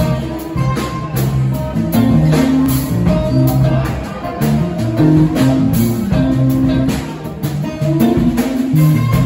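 Live rock band playing an instrumental passage: electric guitar, acoustic guitar, bass guitar and drum kit.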